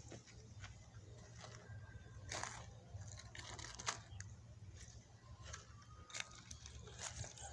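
Chewing of crunchy food: faint, irregular crunches a second or so apart, over a steady low hum.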